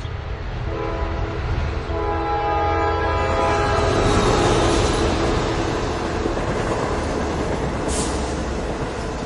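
Long Island Rail Road train sounding its multi-tone horn in two blasts, the second longer, then passing close with a loud rushing rumble. There is a brief high hiss about eight seconds in.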